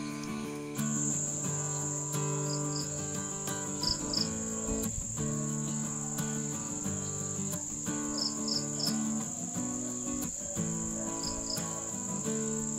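Evening insects, a cricket-like trill holding one steady high note from about a second in, with short chirps in pairs every second or two. Soft instrumental music with held low notes plays beneath.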